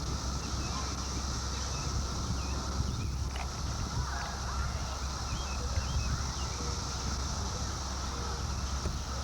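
Steady, unbroken chorus of 17-year periodical cicadas, a constant high drone, over a low steady rumble.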